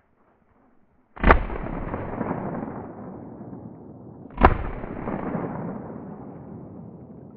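Two shotgun shots about three seconds apart, each followed by a long echo rolling away through the forest, fired at a capercaillie.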